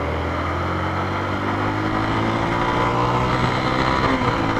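Yamaha Fazer 250's single-cylinder engine through its stock exhaust, pulling under acceleration with its note rising steadily, then dropping back about four seconds in as the revs fall.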